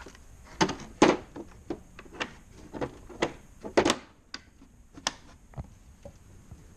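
Tool chest drawers and the tools in them being handled: an irregular series of sharp clicks and knocks, loudest about a second in and again just before four seconds in.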